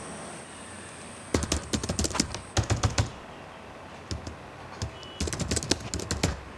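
Computer keyboard typing: quick runs of keystrokes, one about a second and a half in and another near the end, with a few single taps between them.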